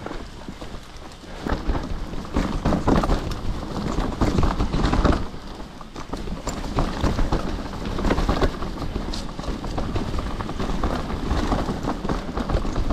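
Full-suspension mountain bike riding down a rough trail: tyres rolling over dirt and stones, with irregular rattles and clatters from the bike over bumps and a steady low rumble.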